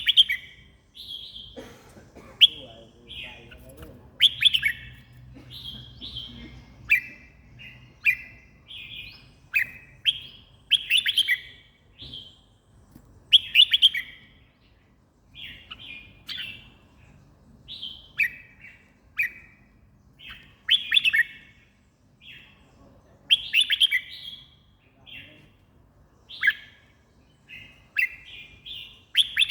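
Red-whiskered bulbul singing: short, bright warbled phrases repeated every second or two with brief pauses between them.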